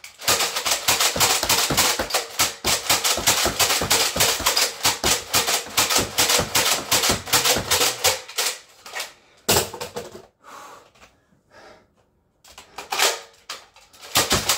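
Nerf Alpha Trooper pump-action foam dart blaster being pumped and fired rapidly, a fast run of plastic clacks at several shots a second. The firing stops about eight seconds in, with one more shot shortly after, then resumes near the end.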